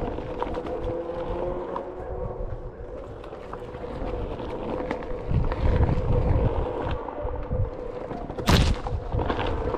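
Onewheel GT's electric hub motor whining steadily as it rolls over a dirt trail, with low rumble from the tyre and wind on the microphone. One sharp knock sounds about eight and a half seconds in.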